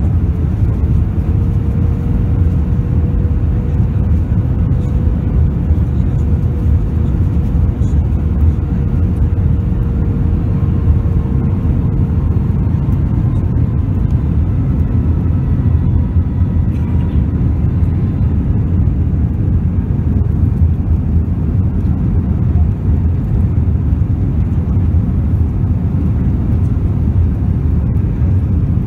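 Jet airliner cabin noise at a window seat over the wing: a steady, loud rumble of engines and airflow during descent with the flaps extended, with a faint steady hum that fades out about twelve seconds in.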